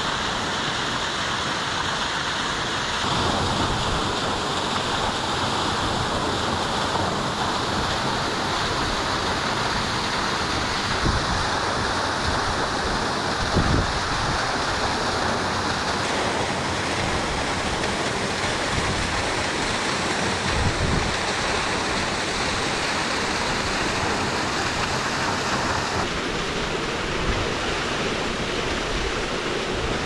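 Steady rushing of a tall stepped waterfall, about 50 m high, pouring into its plunge pool; the tone of the rush shifts a few times.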